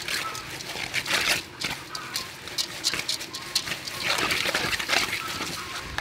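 Glass noodles and sauce being tossed and squeezed by hand in a metal bowl, with irregular wet squishing and rustling.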